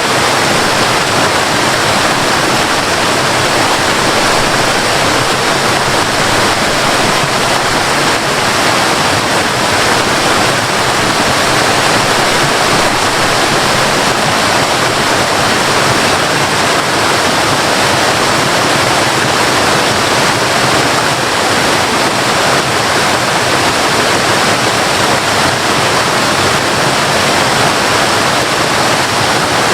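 Waterfall: water falling and splashing in a loud, steady, even rush.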